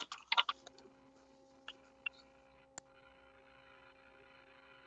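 A few faint, short clicks, most within the first second and three more spread out soon after, over a faint steady hum.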